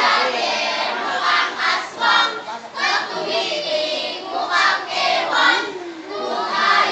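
Many children's voices at once, shouting and singing together in a lively, uneven group chant.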